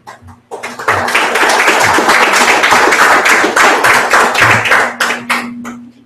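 Audience applause. It starts about half a second in and swells quickly into dense clapping, then thins to a few separate claps near the end.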